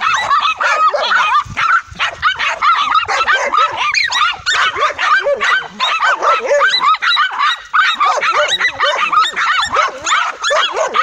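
A pack of dogs barking and yapping over one another without pause, as they bay a tegu lizard they have surrounded.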